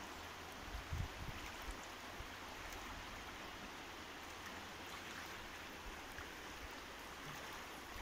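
Steady wash of fast river current running over a shallow riffle, with a few soft low knocks about a second in.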